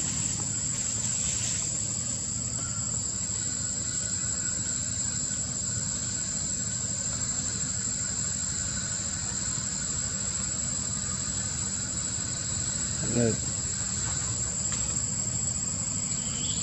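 Insects droning steadily at a high pitch over a low background rumble, with a brief voice-like sound about thirteen seconds in.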